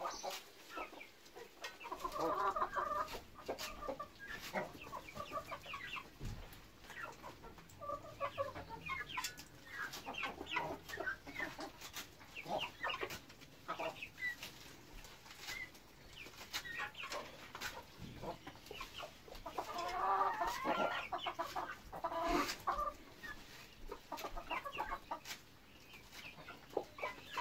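A small flock of domestic chickens clucking as they feed, with many short sharp taps of pecking; the clucking swells in busier bouts about two seconds in and again around twenty seconds in.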